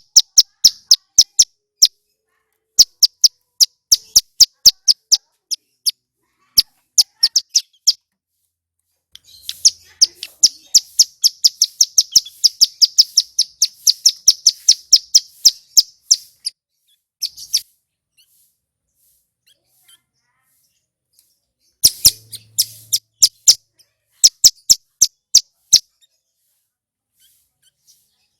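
Male ciblek gunung (a prinia) singing loudly: phrases of sharp, high, rapidly repeated notes, the longest a fast run of about seven seconds in the middle, separated by short pauses.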